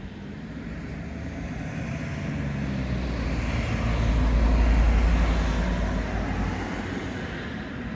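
A vehicle passing by: its low engine noise grows louder to a peak about four to five seconds in, then fades away.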